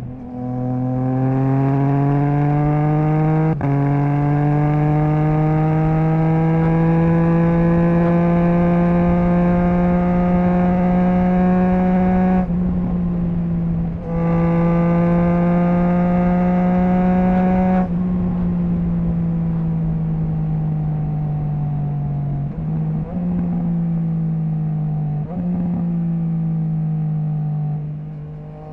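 Triumph Trident 660's inline three-cylinder engine through a Zard stainless full exhaust with the baffle removed, accelerating hard under load, its pitch climbing in long pulls broken by quick upshifts, the first about three and a half seconds in. Past the middle the throttle closes and the note drops, with a few short rev blips near the end typical of auto-blipped downshifts.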